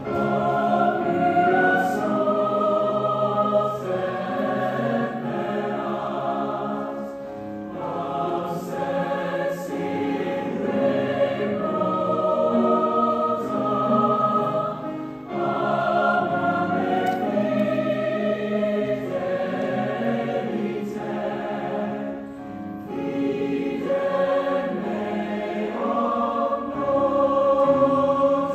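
Mixed chamber choir of men's and women's voices singing in harmony, holding chords in long phrases that swell and briefly fall back every several seconds.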